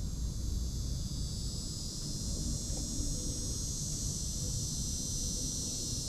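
Insects calling in a steady high-pitched chorus that grows louder about two seconds in, over a constant low rumble.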